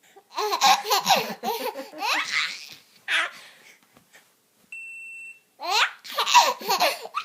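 A baby laughing in repeated bursts of belly laughter, broken by a single steady, high-pitched electronic beep about two thirds of the way through, after which the laughing starts again.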